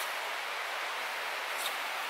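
Steady, even hiss of water, with one faint tick about one and a half seconds in.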